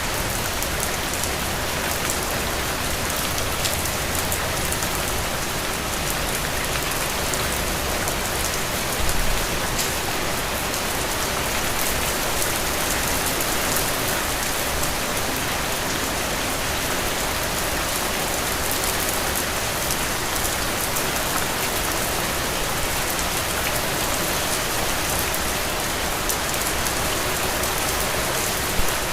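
Heavy rain falling steadily, a dense even hiss with the patter of individual drops. There is a brief low thump about nine seconds in and another near the end.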